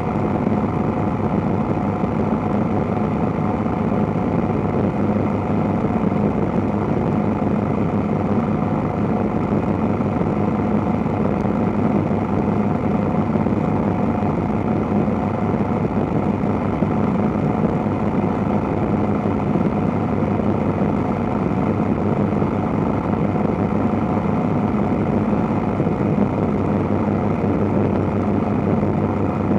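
Light helicopter in flight: its engine and rotor make a steady, unbroken drone with an even rush of air, heard from a camera mounted outside the cabin.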